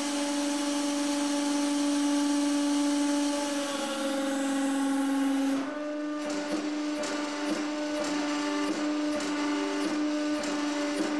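Hydraulic press pump and motor running with a steady hum. A little under six seconds in, as the ram bears down on the copper-and-steel stack, the hum changes and the press runs under load, with faint irregular ticks while the metal is squeezed flat.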